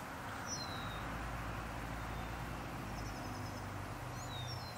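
Outdoor background: small birds chirping a few times with short high calls, over a low steady hum that fades near the end.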